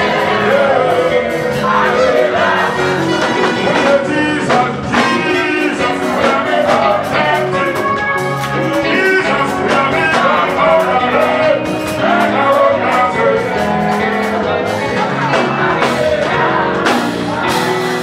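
Gospel praise music: a man sings into a microphone over a band with a steady drum beat.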